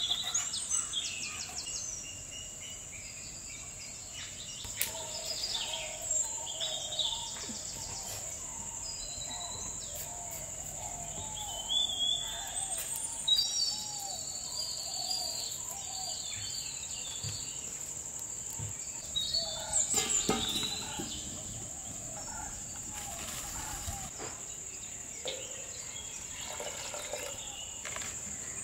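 Birds calling and singing in repeated short chirps over a steady high-pitched insect drone, with a few short knocks and rustles of handling.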